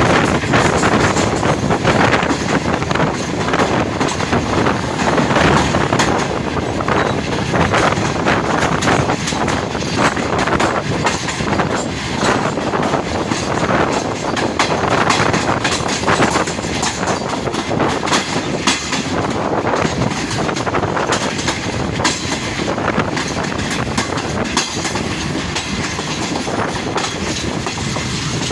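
Passenger train running at speed, its coach wheels clattering over the rail joints with a steady rumble and rattle.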